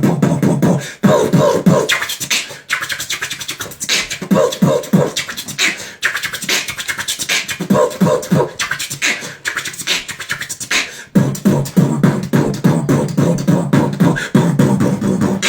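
Beatboxing: a fast, steady stream of mouth-made kick, snare and hi-hat strokes, with stretches of low hummed bass tones under the beat.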